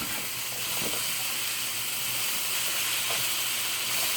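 Vegetable stir-fry sizzling steadily in hot oil in a wok.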